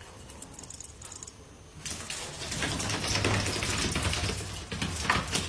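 A rapid, dense rattle of small clicks that starts about two seconds in and grows louder.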